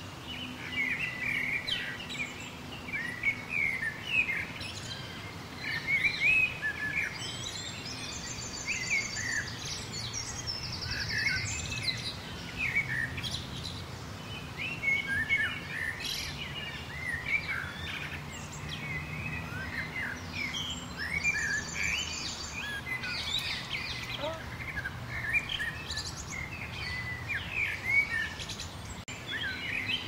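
A chorus of several songbirds chirping and singing in quick, overlapping phrases. A rapid, buzzy, high trill comes in twice, about eight seconds in and again about twenty-one seconds in, over a faint steady low background hum.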